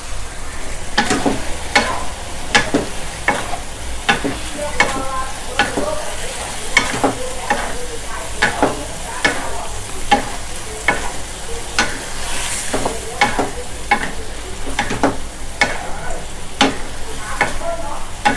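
Wooden spatula stirring and tossing mushrooms and bell pepper in a hot nonstick wok: a scraping stroke about every three-quarters of a second over a steady sizzle of frying.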